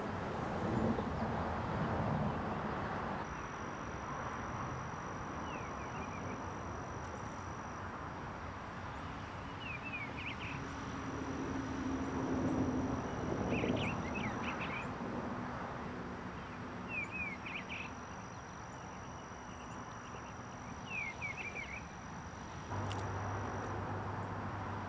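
Outdoor ambience: a steady low rushing background with a bird's short chirping calls every few seconds and a thin high whine that comes and goes. A single click sounds near the end.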